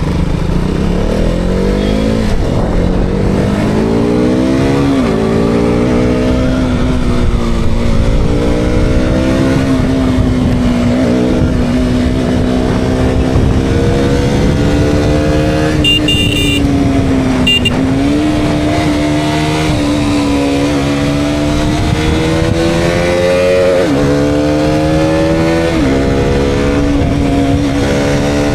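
KTM Duke 200's single-cylinder engine pulling hard, its pitch climbing through each gear and dropping sharply at each upshift, with stretches of steadier cruising in between. Two short high beeps come near the middle.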